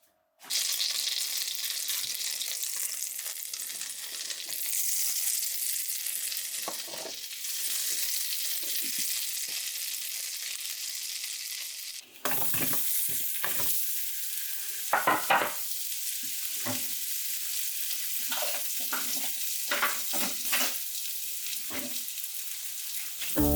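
Food sizzling steadily in a frying pan while apple French toast is cooked. About halfway through there is a brief break, and after it the sizzle goes on under repeated taps and scrapes of a utensil against the pan.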